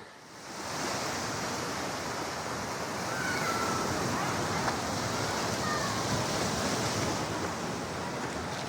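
Sea surf washing onto a sandy beach: a steady rush of waves.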